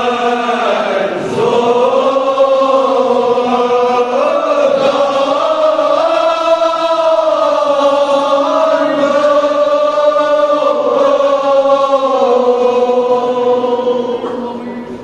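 Men's voices chanting a Kashmiri marsiya, a Shia mourning elegy, together in long, slowly wavering held notes, fading near the end.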